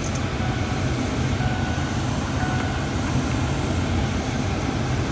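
Steady low rumble of a Ford F-150 pickup running, heard from inside the cab.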